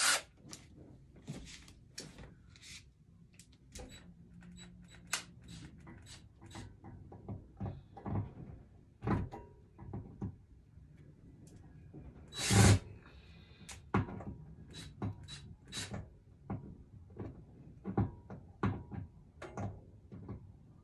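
Metal over-the-door hook rack and wooden door knocking and rattling while the rack is worked loose with a cordless drill. Scattered clicks and knocks, with a loud clunk at the start and another about twelve seconds in.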